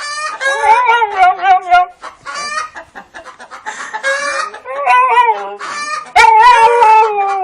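An animal giving a series of loud, drawn-out, wavering calls, about five in all, the longest near the start and at the end.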